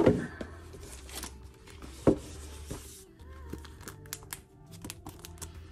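Packaging being handled: a cardboard box and a plastic sleeve rustle and crinkle, with a loud rustle at the start and a sharp knock about two seconds in. Soft background music plays underneath.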